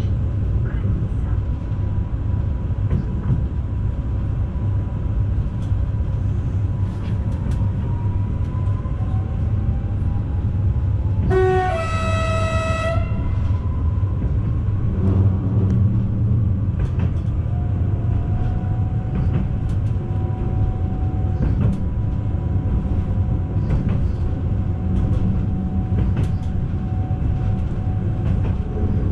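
Newag Impuls 2 electric multiple unit running, heard from inside the carriage: a steady low rumble of wheels on rail with scattered faint clicks and a thin electric whine. About eleven seconds in, a train horn sounds once for about a second and a half.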